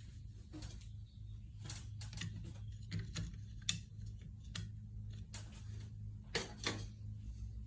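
Irregular light clicks and taps, a few louder ones toward the middle and end, over a steady low hum.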